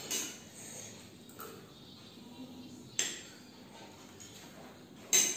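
Metal forks and spoons clinking and scraping against plates of noodles: a few sharp separate clinks, the loudest near the end.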